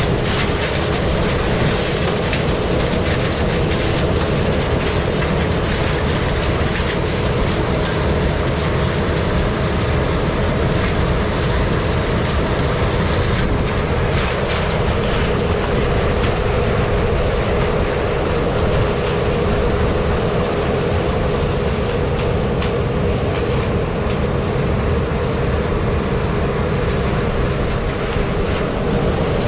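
Combine harvester running and moving off: steady engine and machinery noise with a constant whine.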